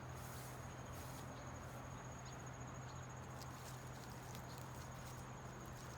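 Insects, crickets by the sound of it, trilling as one thin, high, steady tone over a low steady hum, with a few faint clicks scattered through.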